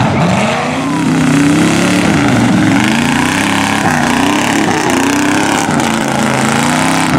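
Engines of lifted square-body Chevy trucks revving hard, the pitch rising and falling about every second as the drivers work the throttle, over the noise of mud tires spinning and slinging dirt.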